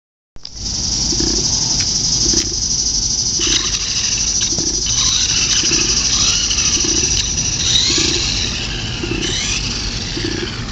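Traxxas Revo VXL RC monster truck running on its brushless electric motor: a steady high whine with the pitch wavering and gliding up and down as the throttle changes, over a rough low rumble.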